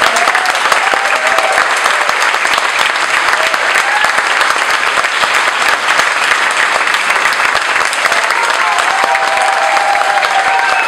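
A crowd applauding: dense, steady clapping, with a few voices calling out over it about a second in and again near the end.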